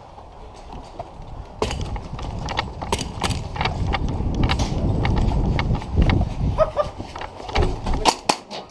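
Running footsteps thudding in a quick, uneven rhythm, with gear rattling and the camera jostling, starting about a second and a half in. Near the end, a quick run of sharp cracks from an airsoft pistol firing.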